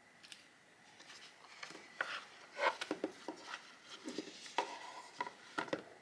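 Light, irregular clicks, taps and rustles of the small tools and packaging of a phone screen-repair kit being handled.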